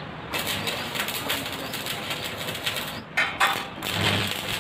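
Stick-welding arc crackling steadily as a steel square-tube gate frame is tack-welded, then breaking into a few short bursts near the end as the arc is stopped and restruck.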